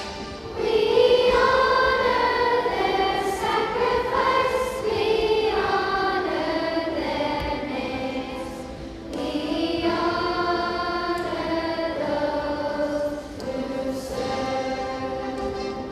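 A fifth-grade children's chorus singing together in long held phrases. It comes in strongly about half a second in and pauses briefly for breath twice, near the middle and later on.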